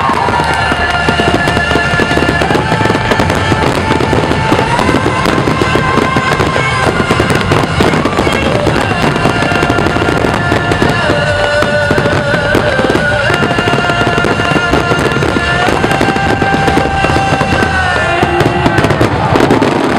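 Fireworks finale: a dense barrage of shells bursting and crackling without pause, over loud music with long held notes that shift in pitch every couple of seconds.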